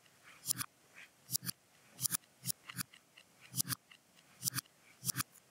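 Rapid sharp clicks, many in quick pairs, about three a second at an uneven pace.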